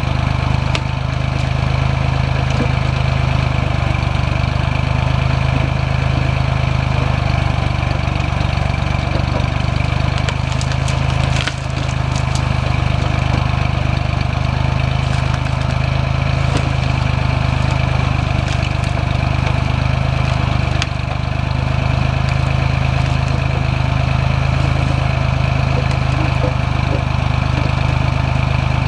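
Small Ford tractor's engine running steadily while powering a three-point-hitch backhoe, dipping briefly twice. A few faint knocks come near the middle.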